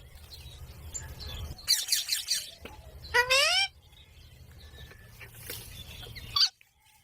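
Ringneck parrot calling: a harsh screech about two seconds in, then a shorter call that rises in pitch about a second later.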